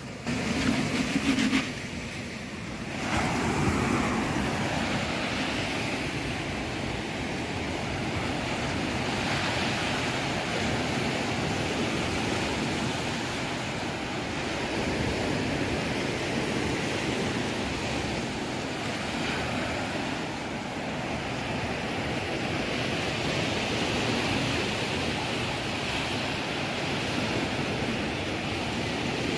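Sea surf washing up a sandy beach, a steady rushing wash that swells and eases gently, coming in about three seconds in.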